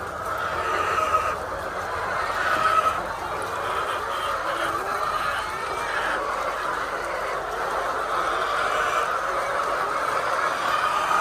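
Many hens clucking and calling over one another in a poultry house, a steady, unbroken din.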